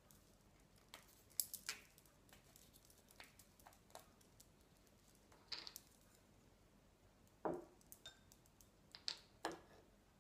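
Paintbrush handles clicking and rattling against each other on a cloth rag as a hand sorts through a bunch of brushes, with light rustles of the rag; a few faint, scattered clicks in a quiet room.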